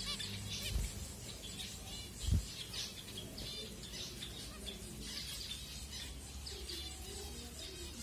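A flock of zebra finches keeps up many short, overlapping chirps and calls while feeding. A dull low thump about two seconds in is the loudest sound.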